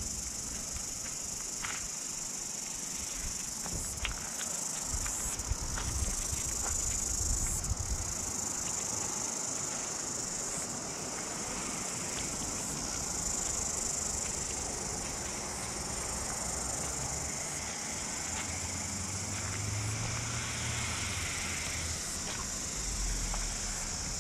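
A steady, high-pitched chorus of insects in coastal bush, with wind buffeting the microphone as an uneven low rumble that comes and goes.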